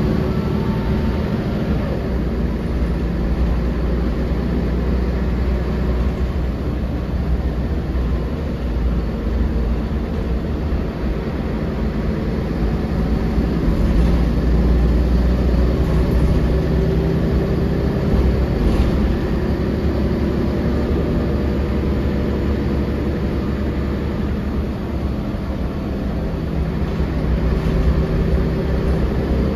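Interior sound of a 1999 Volvo B10L low-floor bus driving: the rear-mounted engine runs under a steady low rumble, its note rising and falling a few times as the bus picks up and eases off speed, with road and body noise in the cabin.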